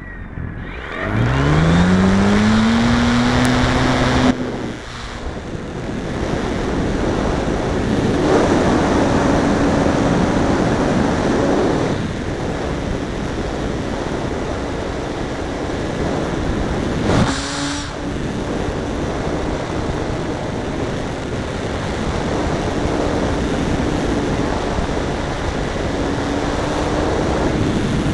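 Brushless electric outrunner motor (RimFire 42-50-100) and propeller of a Great Planes Eagle 580 RC aerobatic plane in flight, with heavy wind rush over an on-board microphone. The motor's whine rises in pitch about a second in and cuts off suddenly near four seconds, then its tone comes and goes under the wind through the manoeuvres, with a short burst of noise about two-thirds of the way through.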